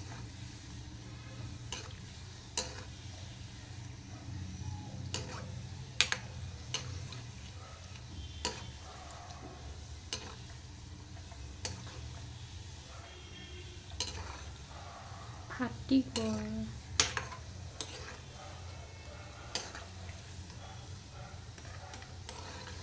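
Gulab jamun dough balls frying in hot oil in a small steel kadai, a steady sizzle, with a steel ladle clinking and scraping against the pan at irregular moments as the balls are turned.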